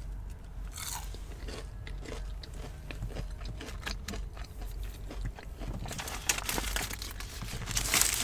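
A person chewing and crunching fried fast food, many small crunches in a row, becoming denser and louder crackling near the end.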